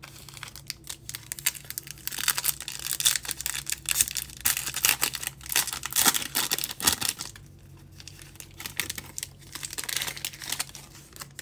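Foil wrapper of a Bowman baseball card pack crinkling and tearing as it is ripped open by hand and the stack of cards is slid out. The crinkling runs for most of the first seven seconds, eases off, then comes again briefly near the end.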